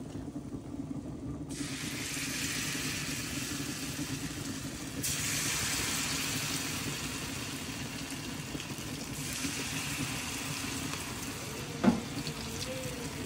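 Codfish fritter batter sizzling in hot oil in a small frying pan as spoonfuls are dropped in: the sizzle starts about a second and a half in and gets louder about five seconds in as another spoonful goes in. A single sharp knock near the end.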